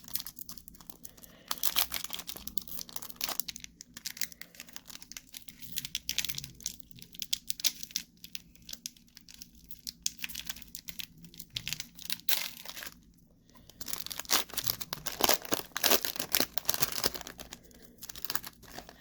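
A 1992 Donruss baseball card pack wrapper being torn open and crinkled in the hands, in irregular bursts of tearing and rustling with a short lull about two-thirds of the way through.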